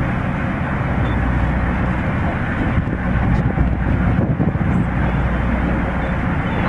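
A boat's engine running steadily with a low hum, with wind buffeting the microphone.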